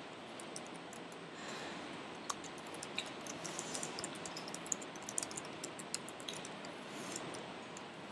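Typing on a computer keyboard: faint, irregular keystroke clicks over a steady low hiss.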